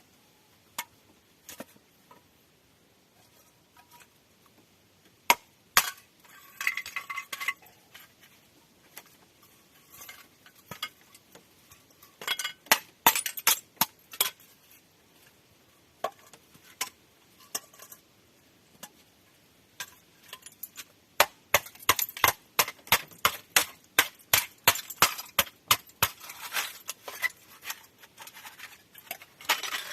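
A series of sharp clinks and knocks, scattered at first, then coming quickly one after another, several a second, through the second half.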